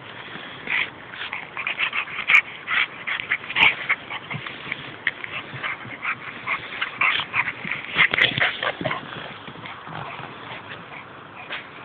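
Dogs playing, with rapid high-pitched yips and barks several times a second that thin out near the end.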